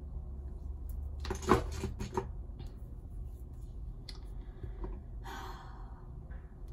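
Small clicks and knocks of makeup items being handled, with a cluster about a second and a half in and a few faint ones later. A short rustle comes near the end, all over a low steady room hum.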